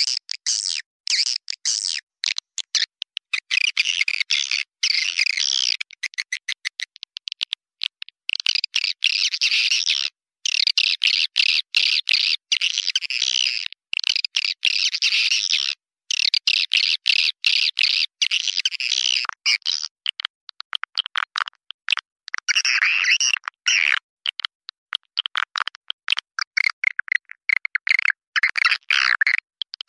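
Swiftlet calls: a dense, high-pitched chattering twitter. This is the lure call played from swiftlet houses to draw swiftlets in to roost and nest. The twittering comes in runs broken by many abrupt silent gaps.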